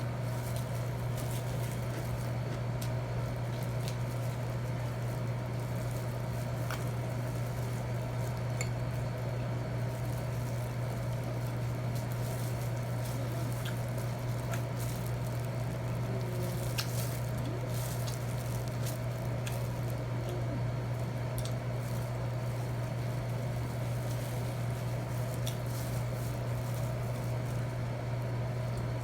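Eating sounds: chewing, with scattered light clicks of cutlery on a plate, over a steady low hum.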